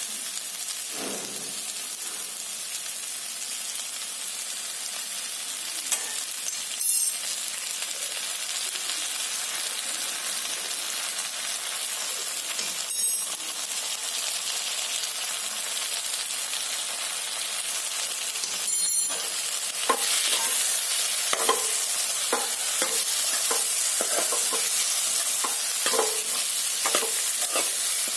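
Potato and capsicum sabzi sizzling steadily in a metal kadhai, with a few sharp clicks. From about two-thirds of the way in, a steel ladle scrapes and knocks against the pan as the cream and spices are stirred through.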